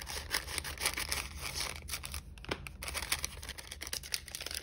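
Paper pocket being opened by hand: crinkling and rustling paper with a quick run of small crackles.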